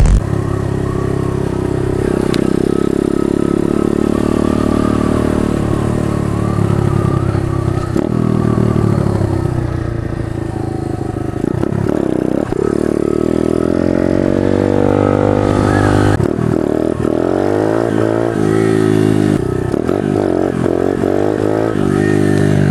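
Pit bike engine running as it is ridden along a street, its pitch climbing and falling several times as the throttle is opened and closed.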